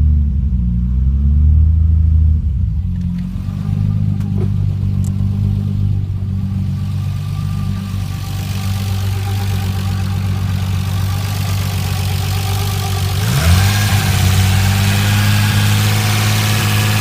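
Freshly rebuilt Nissan Skyline R33 GTS-t turbocharged straight-six running on its first start. The idle wavers for the first few seconds, then settles and holds steady, with a quick dip and rise in revs about 13 seconds in. The lifters are still a bit noisy.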